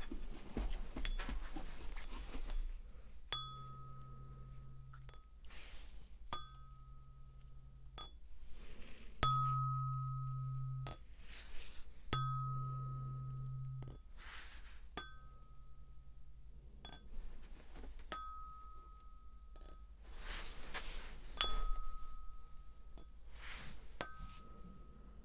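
A tuning fork struck over and over, about every three seconds, each time giving a clear high ring that lasts a second or two before it fades or is damped. Soft rustling swishes come between the strikes.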